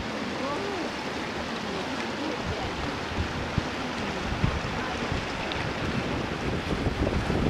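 Wind buffeting the microphone over a steady hiss, the buffeting growing stronger from about two and a half seconds in.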